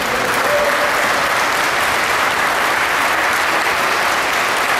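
Audience applauding, a steady, sustained clapping.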